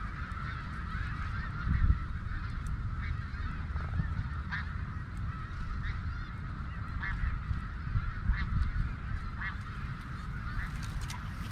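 A large flock of snow geese calling, a continuous chorus of many overlapping honks.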